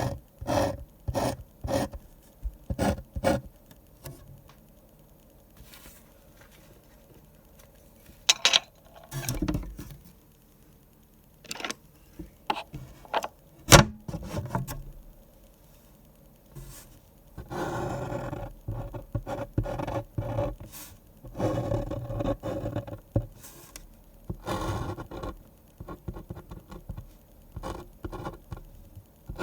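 Pen scratching on paper while drawing: a run of short, quick strokes at the start, a single sharp click about halfway through, then longer, denser runs of scratchy strokes.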